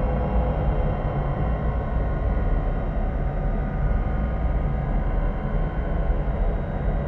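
Eerie ghost sound effect: a steady deep rumbling drone with faint held tones above it, without breaks or sudden hits.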